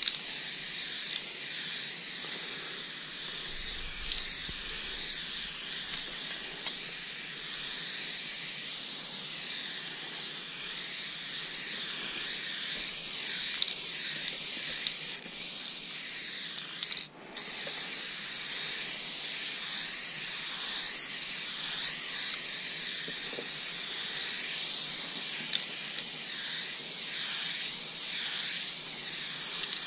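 Aerosol spray paint can hissing in long, continuous passes as paint goes onto the train's side, breaking off for a moment about seventeen seconds in.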